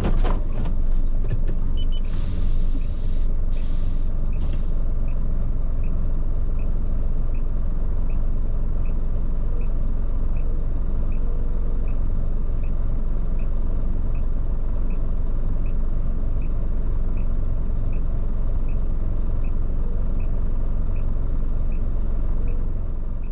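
A large truck's engine and road noise run as a steady low rumble, with a few short hisses in the first few seconds. A light, regular tick repeats about once every three-quarters of a second.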